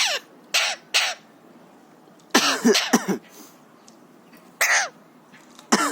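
Alexandrine parakeet imitating a human cough: a string of short coughs at irregular intervals, several of them close together a little before the middle.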